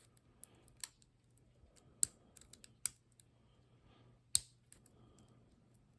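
Small metallic clicks and light scraping of a lock pick working the pins inside a padlock's keyway under tension, a few sharp clicks scattered through, the loudest about four seconds in, over a faint low hum.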